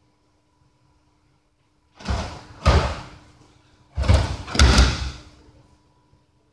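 An aikidoka falling hard onto gym mats after being thrown, twice about two seconds apart. Each fall is a pair of loud thuds about half a second apart.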